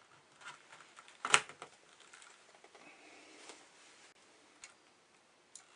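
Small plastic clicks and knocks of a computer power supply's cable connector being pushed into a motherboard's power socket, with one sharp click about a second in as it seats.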